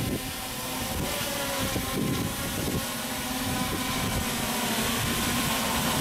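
Multirotor drone's electric motors and propellers whirring steadily, a set of held tones that waver slightly in pitch, with wind rumbling on the microphone.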